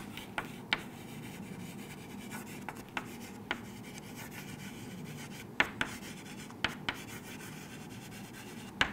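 Chalk writing on a chalkboard: a quiet, steady scratching of chalk across the board, broken by a few short sharp taps as the chalk strikes the surface.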